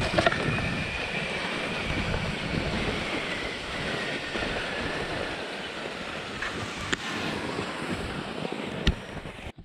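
Altai Hok skis hissing steadily over a packed snow trail on a fast downhill run, with wind rushing on the microphone. A couple of faint clicks come near the end.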